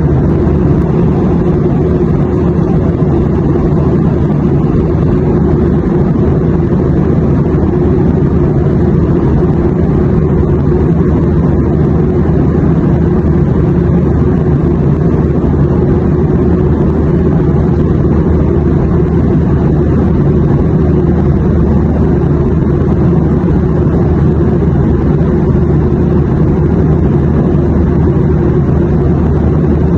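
Airliner cabin noise: a steady, even low-pitched drone of engine and airflow rumble, unchanging throughout.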